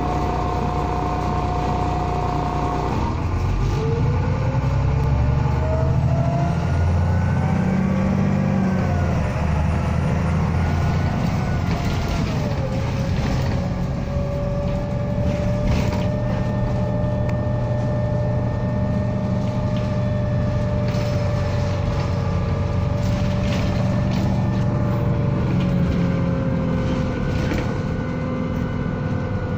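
Single-deck bus with an MCV body, heard from inside the passenger saloon: a steady engine rumble throughout. About three seconds in, a drivetrain whine rises as the bus accelerates and then falls away. From about twelve seconds it settles into a steady whine while the bus cruises, dropping a little near the end.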